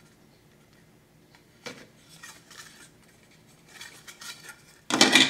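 Plastic model kit parts being handled: a single click, then faint light rustles and ticks as the styrene interior tub is turned in the hands, and a short louder clatter near the end as parts are shifted.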